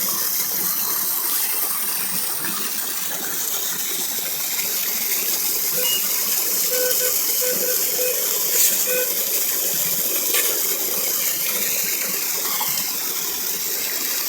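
Small waterfall pouring steadily, a constant rush of falling water. A few short, high, faint notes sound over it here and there.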